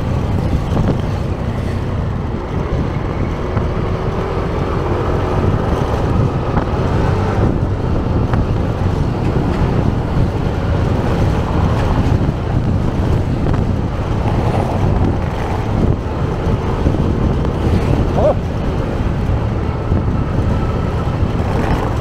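Motor scooter underway: a steady engine drone with wind rushing over the microphone.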